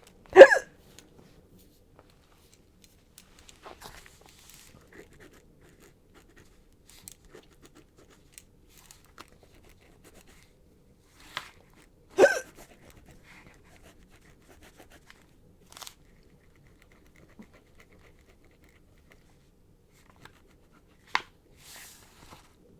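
A young woman hiccuping: a sharp hiccup just after the start, another about 12 seconds in, and a softer one near the end, with long quiet gaps between.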